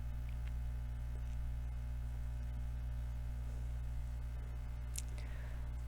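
Quiet room tone with a steady low hum, and a brief faint click about five seconds in.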